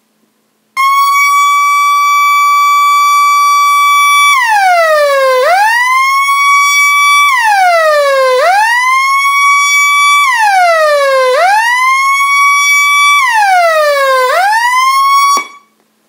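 CONION C126F boombox's built-in alarm sounding. It starts with a steady electronic tone, then changes to four siren-like sweeps, each falling in pitch over about a second and rising back, about three seconds apart, and cuts off suddenly near the end.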